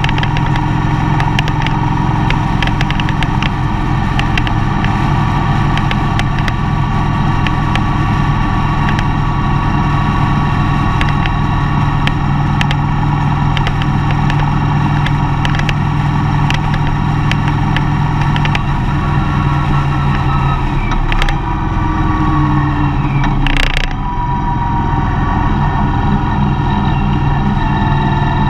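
Mercedes-Benz Vito van driving, its engine running steadily under way with road noise. About twenty seconds in the engine note dips and shifts, as at a gear change, with a short sharp knock just before it settles again.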